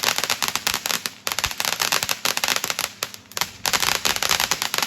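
Consumer firework crackling: a dense, rapid run of small sharp pops, with brief lulls a little after one second and again after three seconds.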